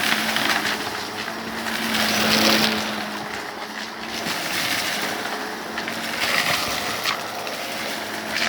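Vacuum cleaner running close to its microphone: a steady motor hum under a rush of suction airflow that swells and eases as it is pushed back and forth over a rug.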